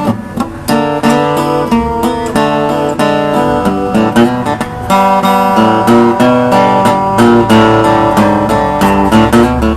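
Acoustic guitar strumming a steady country-style rhythm of chords, an instrumental passage without singing.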